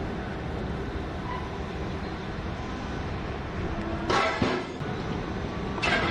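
Steady mechanical rumble of heavy mining machinery at work: a BelAZ 75710 haul truck standing under an electric rope shovel while it is loaded. Two short, loud crashes come about four and six seconds in.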